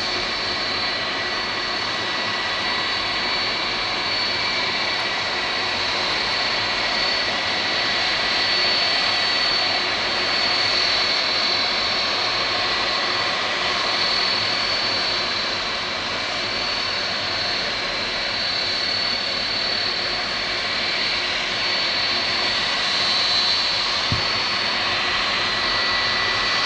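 Boeing 757-200 jet engines running at low power as the airliner taxis on the runway: a steady rushing noise with a high whine held at one pitch.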